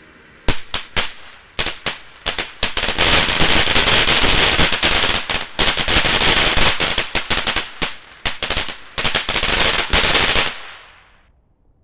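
Phantasmic Fountain consumer firework going off in loud crackling pops: a few sharp bangs about half a second in, then a dense, continuous crackle over a hiss for several seconds, dying away near the end.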